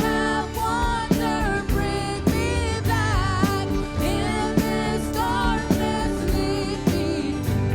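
Worship song: a voice singing a melody over a band with bass and a steady drum beat.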